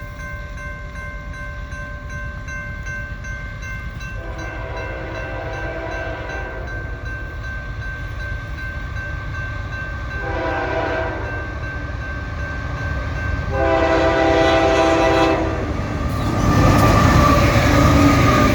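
Early K5H five-chime air horn on a GE CW44AH locomotive sounding three separate blasts for a grade crossing as the train approaches. Near the end the locomotives and train pass close by and grow loud.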